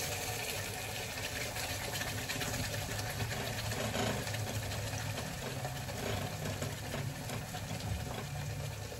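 Thick ground gravy sizzling steadily as it is poured into hot ghee in a kadai, with a low hum that comes and goes underneath.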